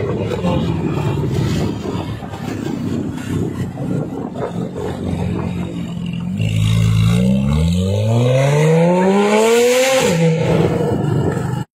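Porsche 991.1 Carrera 4S flat-six breathing through a catless Fi valvetronic exhaust. It burbles roughly for about six seconds, then the car accelerates hard and the revs climb steadily for about four seconds before easing off. The sound cuts off suddenly near the end.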